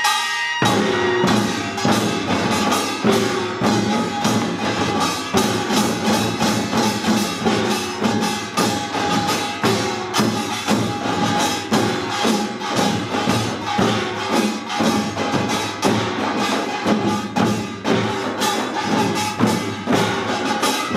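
Korean pungmul percussion band playing pangut: janggu hourglass drums, buk barrel drums and ringing gongs beating a fast, dense rhythm together. The low drum strokes join in about half a second in.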